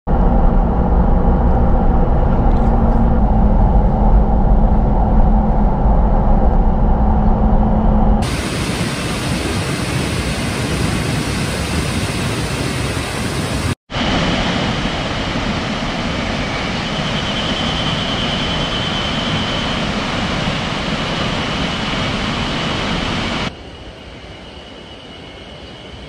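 Steady rush of a waterfall and mountain stream, changing abruptly at cuts: a heavy deep rumble for about the first eight seconds, a brighter even hiss after that with a faint high steady tone in the middle, and a much quieter rush for the last couple of seconds.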